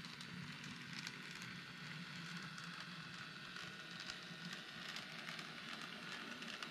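N scale diesel locomotive running along the track: a faint, steady crackling with a low motor hum underneath.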